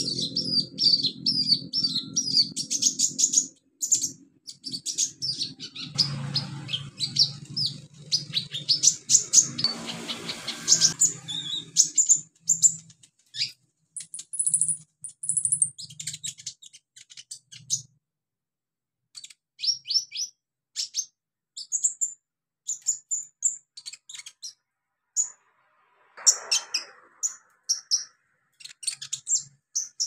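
Male van Hasselt's sunbird (kolibri ninja) singing: rapid runs of thin, high chirps, dense for the first dozen seconds, then shorter scattered phrases with brief pauses. A low steady hum runs underneath for the first dozen seconds.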